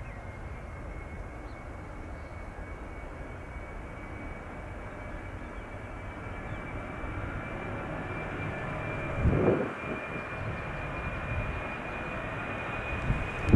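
Jet airliner engines running: a steady high whine that rises slowly in pitch over a low rumble, growing gradually louder. A brief muffled thump about nine seconds in.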